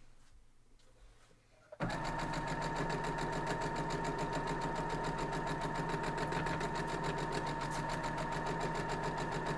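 Domestic electric sewing machine stitching a seam through quilt fabric: after a short pause it starts abruptly about two seconds in and runs at a steady, fast stitching pace, with a steady motor whine.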